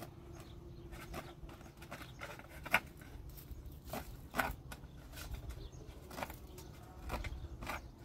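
Hands sorting fresh wild greens on a metal tray: light rustling of leaves and scattered sharp clicks and ticks as stems are picked and dropped, over a low outdoor rumble.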